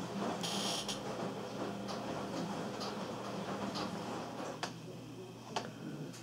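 Faint talk from a radio playing in the room, fading out after about four seconds, over a steady low hum. Two sharp clicks about a second apart near the end.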